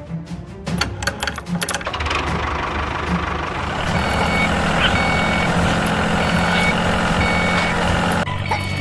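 Sharp clicks for the first two seconds, then a truck engine running steadily, with a reversing alarm beeping at an even pace from about four seconds in.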